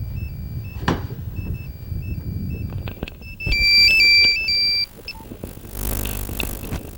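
An electronic melody of simple beeping tones, like a phone ringtone, much louder for about a second and a half in the middle. A sharp knock sounds about a second in, and a rush of noise comes near the end.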